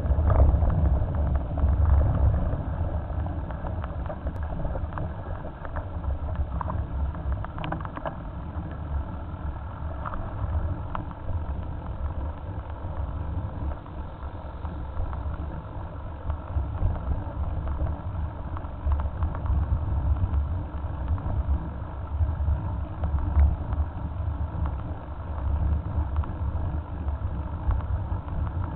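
Wind buffeting the microphone of a camera on a moving bicycle: an uneven low rumble, mixed with tyre and road noise, with a few short clicks and rattles from bumps.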